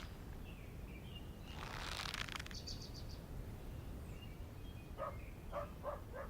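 Quiet outdoor ambience with faint bird chirps, a brief rush of noise about two seconds in, and a few soft knocks near the end.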